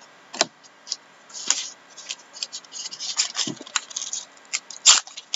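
A hockey card pack's shiny wrapper being torn open and cards handled: irregular crinkling and crackling, with one loud crackle near the end.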